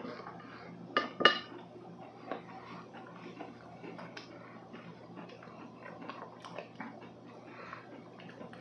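A plate knocked twice in quick succession, sharp clinks about a second in, as food is picked up off it. Then faint scattered clicks and rustles of handling.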